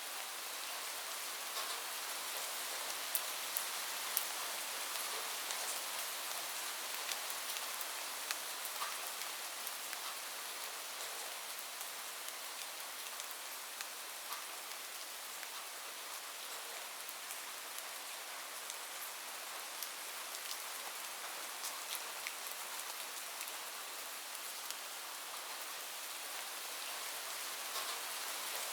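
Steady rain falling on a roof: a constant hiss with many individual drops ticking sharply on top of it.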